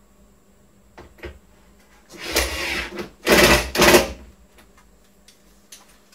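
Cordless drill driving a screw into a wooden box frame: a couple of light clicks, then the motor runs in three short spurts, the last two the loudest.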